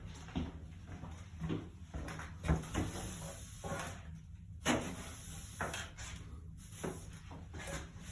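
Irregular knocks, bumps and short scrapes of a wooden workpiece and tools being handled on a bench, with no drill running.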